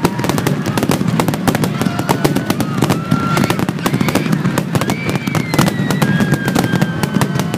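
Fireworks finale: a dense, rapid barrage of shell bursts and crackles. A few thin whistles glide through it.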